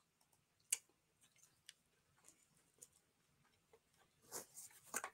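Near silence broken by a few faint clicks and ticks: one sharper click under a second in and a short cluster of small clicks near the end.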